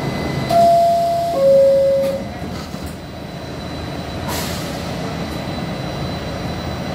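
NYC subway R68A door chime: two tones, high then lower, each held close to a second, the signal that the doors are about to close. A steady rumble of a train standing in the station runs underneath, with a short hiss of air about four seconds in.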